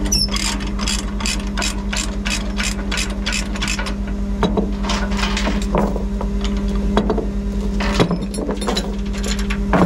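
Ratchet chain binder being cranked loose on a tie-down chain: a quick run of clicks, about four a second, for the first four seconds. A few separate chain clanks follow. Underneath is the steady hum of a Peterbilt 389 semi truck's engine held at raised idle with the PTO engaged.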